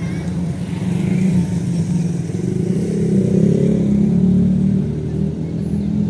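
An engine running steadily, swelling and rising slightly in pitch around the middle.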